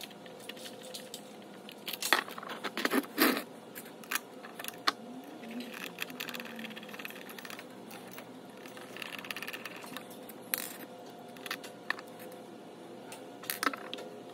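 Scattered small metallic clicks and clinks of pliers, a screwdriver and machine screws with nylock nuts against a thin aluminium box as the screws are fastened, the loudest a few seconds in.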